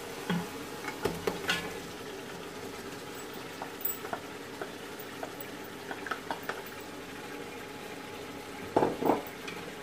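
Mutton pieces frying in hot oil and browned onions in an aluminium pot, a steady sizzle, while a wooden spoon stirs and scrapes. Scattered light taps, and two louder knocks shortly before the end.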